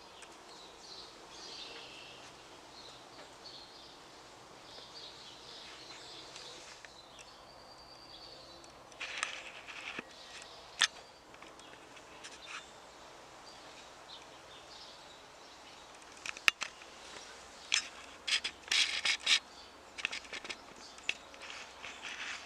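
Faint birdsong over quiet outdoor ambience, with scattered sharp clicks and knocks in the second half, most of them close together near the end. The siren is not running.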